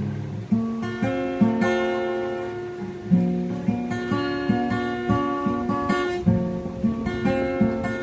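Acoustic guitar played slowly: chords struck about once or twice a second and left to ring.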